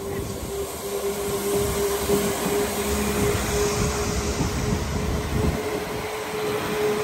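A train passing close by: the rumble of wheels on rails, building up in the first second, with a steady humming tone running through it.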